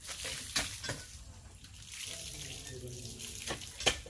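Water trickling and splashing, with two sharp knocks, one about half a second in and one near the end.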